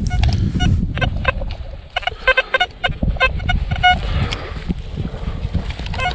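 Metal detector giving short electronic target beeps of changing pitch as its search coil is swept over a dug hole, a quick run of them about two to three seconds in, over a low rumble.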